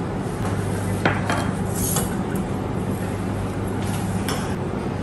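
A few light clinks and knocks of kitchen utensils against a glass mixing bowl, over a low steady hum.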